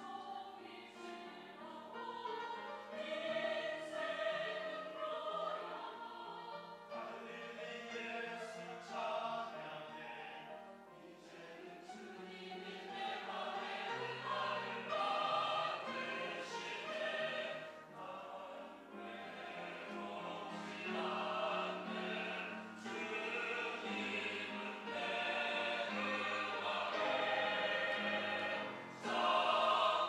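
Mixed church choir of men's and women's voices singing a choral anthem in parts, growing louder toward the end.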